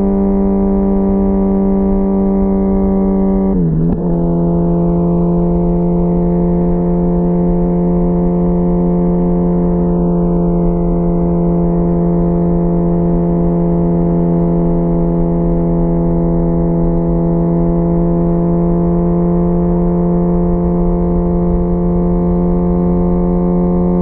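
2004 Kawasaki Ninja ZX-10R's inline-four engine through a full Sato titanium exhaust, holding steady revs while cruising: one even, unbroken drone. About four seconds in the pitch dips briefly, then settles a little lower and stays steady.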